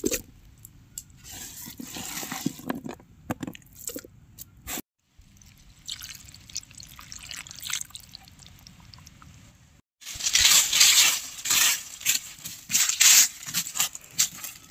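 Wet squelching and dripping as handfuls of spice-marinated chicken and vegetables are dropped into a hollowed-out watermelon shell. About ten seconds in, louder gritty scraping and crunching takes over as hands work the dry, stony soil.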